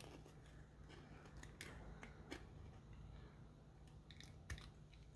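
Box cutter blade scraping and nicking a clear acrylic plate: a few faint, short scrapes over quiet room tone.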